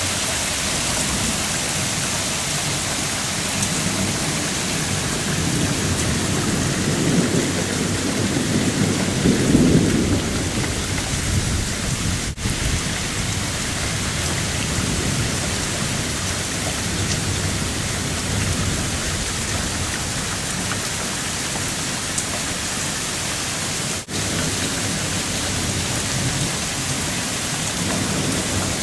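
Heavy thunderstorm rain pouring steadily, with a low roll of thunder that swells and fades in the first third and is the loudest part.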